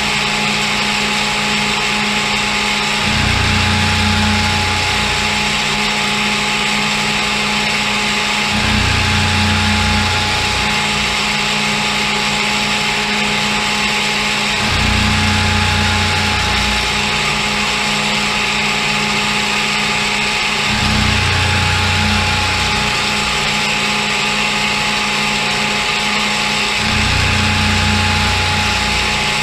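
CNC mill running a program that mills a slot in a metal block: a constant machine noise with a steady high tone, and a deeper hum that swells for about a second and a half roughly every six seconds.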